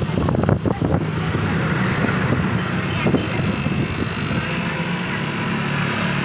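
A motor runs with a steady low hum, with a few sharp clicks and knocks in the first second.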